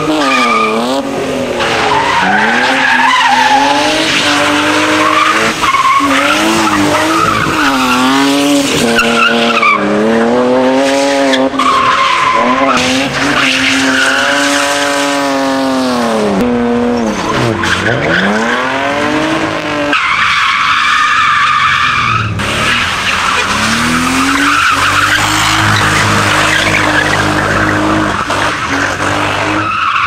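BMW E36 3 Series cars drifting, the engine revs climbing and falling again and again as the rear tyres spin and squeal. The revs drop deep and climb back about halfway through, and a long, steady tyre squeal fills the last third.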